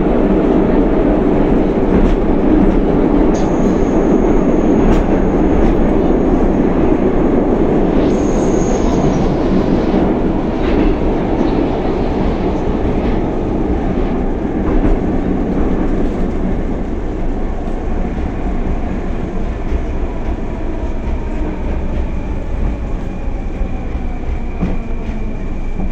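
Moscow metro Rusich train running at speed: a steady heavy rumble of wheels on rail, with a thin high wheel squeal in the first third and a steady high whine coming in past the middle.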